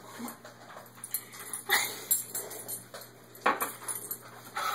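A person slurping and munching watermelon flesh straight from the rind, with face pressed into the fruit. The wet, irregular slurps are strongest about two seconds in and again about three and a half seconds in.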